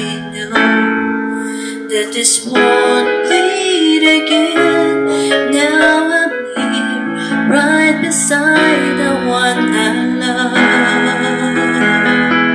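Karaoke backing track of a piano-led ballad, with held electric-piano chords and a woman's voice singing along over it, mostly from a few seconds in.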